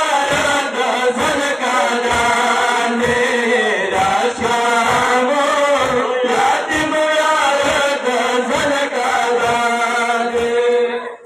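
Pashto noha chanted by male voices over a crowd of mourners beating their chests in unison, about three strikes every two seconds. It stops abruptly near the end.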